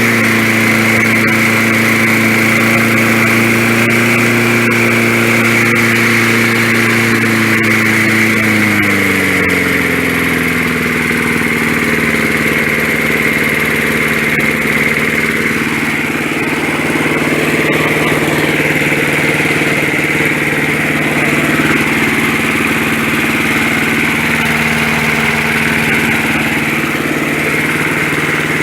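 1965 Briggs & Stratton 3 hp single-cylinder four-stroke engine (model 82906) running steadily; about eight seconds in its speed drops and it settles to a lower, steady running speed. The owner suspects a clogged main jet in its carburettor.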